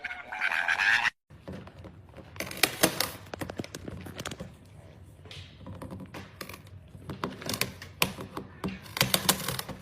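Irregular tapping and knocking, many short clicks and thunks in quick, uneven runs, after a short pitched sound that cuts off about a second in.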